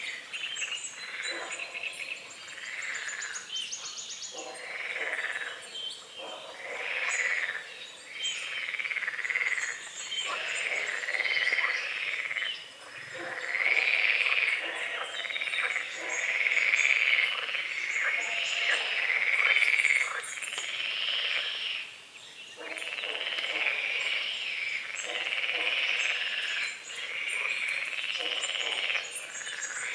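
A chorus of frogs croaking at a lake, one call overlapping the next in waves that grow louder towards the middle and ease briefly past two-thirds of the way through. Faint bird chirps sound high above the croaking.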